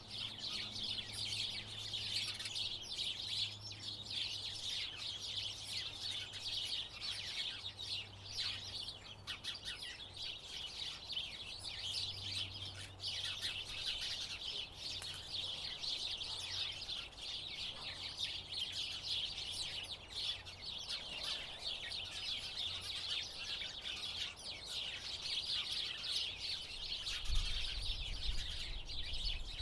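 A group of house sparrows chirping, with many short overlapping chirps running on without a break. A low rumble comes in near the end.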